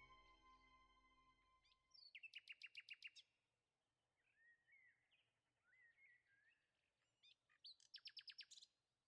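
Faint bird calls: two quick trills of rapid high chirps, each about a second long, with softer twittering between them. Over the first two seconds a sustained musical note fades out.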